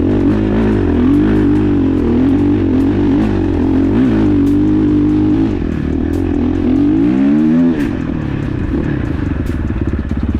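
KTM 450 SX-F's single-cylinder four-stroke engine under hard riding on a climb, revs rising and falling with the throttle. Near the end it revs up sharply once, then drops to a low, evenly pulsing idle.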